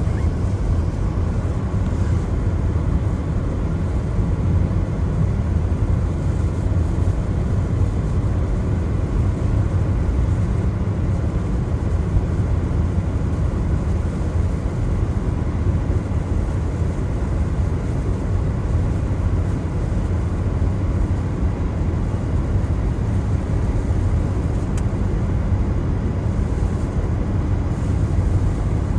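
Car driving on a wet road in the rain: a steady, even rumble of road and tyre noise, low-pitched and unchanging.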